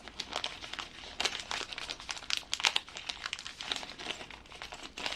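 Irregular plastic crinkling and small clicks of handled parts as someone rummages through kit bags for a different driver tip.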